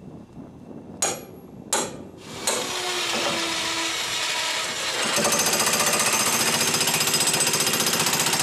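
Electric demolition hammer driving a long steel pin down through a wood float stringer into the log below. Two short blips about a second in, then a steady, rapid hammering from about two and a half seconds that gets louder about five seconds in.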